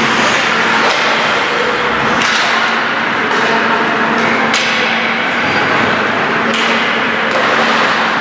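Ice hockey play: sticks and puck knocking and skate blades scraping on the ice, with several sharp knocks over a steady hum.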